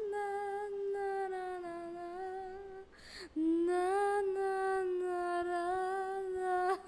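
A female voice singing a slow, wordless tune in long held notes: two phrases with a brief breath between them about three seconds in.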